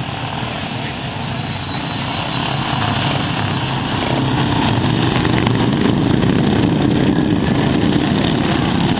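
Small racing lawn mower engines running, getting steadily louder over several seconds.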